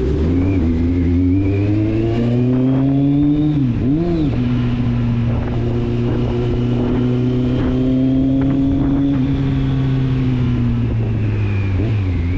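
Kawasaki Z750's inline four-cylinder engine and exhaust running under way, the note climbing slowly. About four seconds in the revs dip and recover sharply, then the note holds steady at lower revs, easing off slightly near the end.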